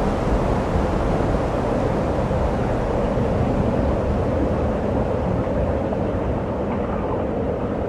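Steady engine and propeller noise inside a small plane's cockpit during landing, with the higher hiss easing slightly near the end.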